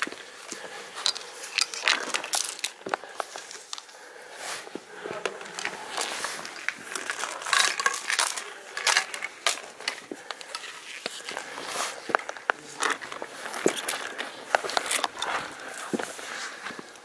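Scrambling over granite: an irregular run of scrapes, knocks and crunches of boots and hands on rock and loose stones, close to the microphone, dying down near the end.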